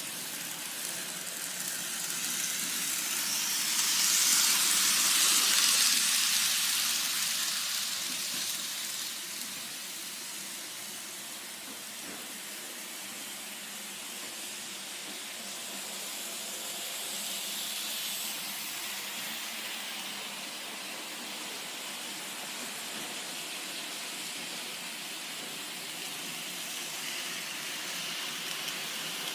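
N-gauge C57 steam locomotive model running along its track: a steady hissing whir from the small motor and the wheels on the rails, swelling to its loudest about four to seven seconds in.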